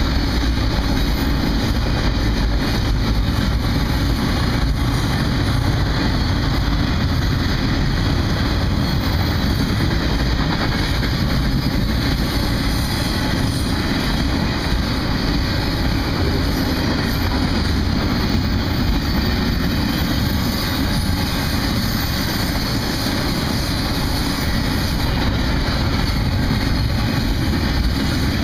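Cars of a BNSF double-stack container freight train rolling past, a loud, steady rumble of wheels on rail that holds even throughout.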